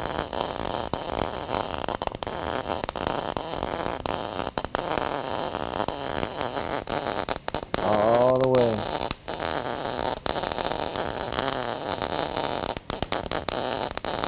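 MIG (gas metal arc) welding arc crackling steadily as the gun weaves side to side across a wide gap, fusing a tacked-in ER70S-6 filler rod into the joint.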